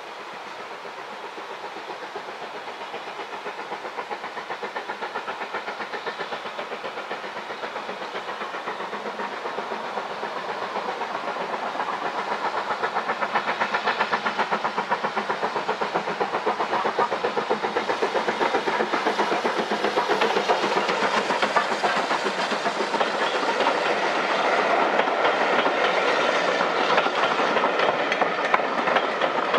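BR Standard Class 4MT 2-6-4 tank steam locomotive working as it approaches, its two-cylinder exhaust beats growing steadily louder. Near the end the coaches pass close by, wheels clicking over the rail joints.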